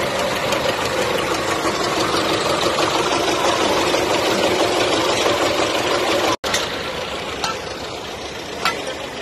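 Tractor diesel engine running steadily close by. About six seconds in the sound breaks off for an instant, and the engine then carries on a little quieter.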